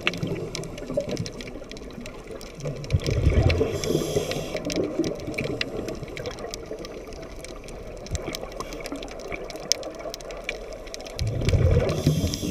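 Scuba diver's regulator breathing underwater: a bubbling exhalation rumbles about three seconds in and again near the end, with scattered sharp clicks and crackles in between.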